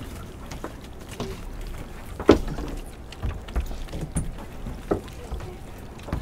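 A lobster-pot rope being hauled up by hand over the side of a small boat. Scattered knocks sound over a low rumble, the loudest about two seconds in.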